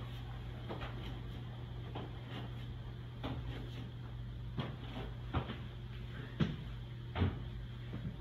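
Someone climbing down a ladder, with irregular knocks of feet and hands on the rungs about once a second, louder in the second half, over a steady low hum.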